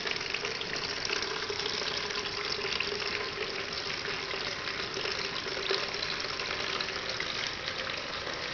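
Water splashing steadily into a clear plastic tank from a small submersible pump, with a faint steady hum underneath. The level controller has switched the pump on at bottom level, and the tank is filling.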